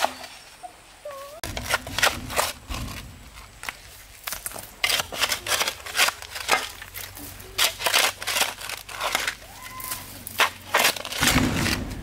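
Irregular sharp clicks and crackles of material being worked by hand, with a heavier low thump near the end.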